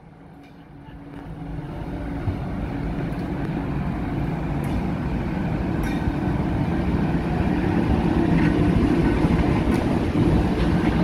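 Pacific National diesel freight locomotive approaching and passing close by. Its engine and wheel noise grows steadily louder over the first few seconds, then holds as the locomotive rolls past.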